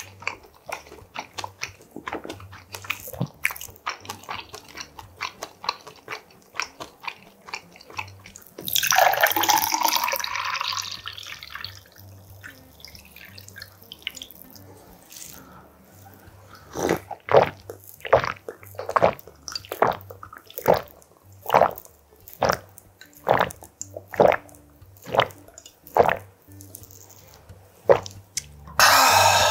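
Close-miked eating sounds: chopsticks clicking and chewing. About nine seconds in, a drink is poured from a can into a glass with a hissing rush. Later comes a long run of loud gulps, about one a second, as the drink is swallowed.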